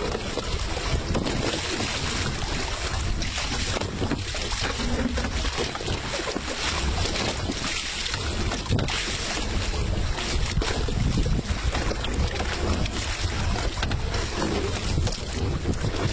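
Wind buffeting the microphone: a steady rushing noise with a heavy low rumble that rises and falls in gusts.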